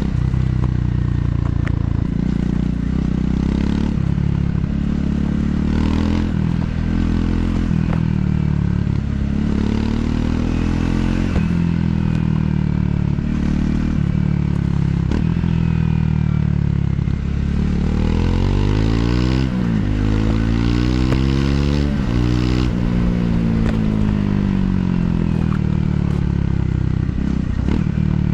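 Triumph Scrambler 400 X single-cylinder engine running through its stock exhaust on a downhill ride, revs rising and falling, with a sweep of climbing and dropping engine pitch about two-thirds of the way through. Wind noise runs under the engine.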